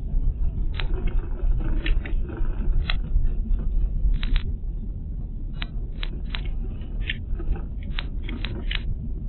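Road and engine rumble of a moving car, heard from inside the cabin. About fifteen sharp, irregular clicks and rattles sound over it.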